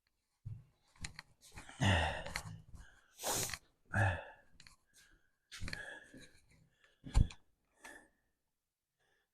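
Irregular handling noises: short clicks, scrapes and rustles, with a sharp knock about seven seconds in. These come from work on the tractor's air filter cover with a screwdriver. The noises stop about eight seconds in.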